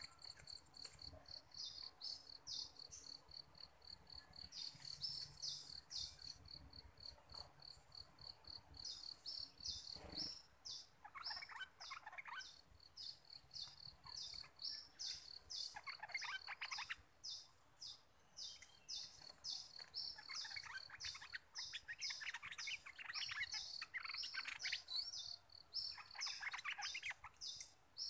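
Bulbul singing bursts of fast, bubbling phrases, starting about a third of the way in and repeating several times, over a steady high, evenly pulsed chirping of an insect.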